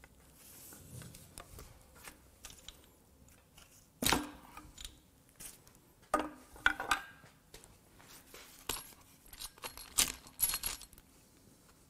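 Hand tools and loose metal engine parts clinking and knocking as a 2GR-FE V6's rear cylinder head is dismantled by hand. There is a sharp knock about four seconds in, then bursts of ringing metal clinks around six to seven seconds and again around nine to eleven seconds.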